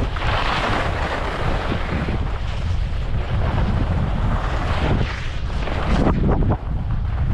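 Wind buffeting a GoPro Hero 12's microphone on a ski run, a steady low rumble, with skis hissing over the snow in swells that rise and fall.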